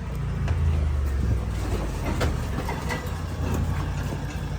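A vehicle engine running with a steady low hum as the vehicle pulls up.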